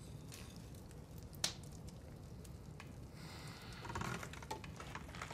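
Wood fire crackling quietly, with scattered small pops and one sharp pop about one and a half seconds in. A soft rustling noise rises briefly around three to four seconds in.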